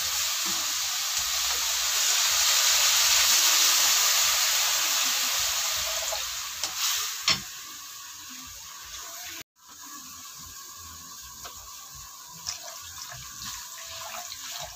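Water poured from a jug into a hot wok of sautéed vegetables, hissing and sizzling, loudest two to four seconds in and dying away by about seven seconds, with a couple of light knocks. After a short break in the sound it goes much quieter, with faint ticks and water trickling.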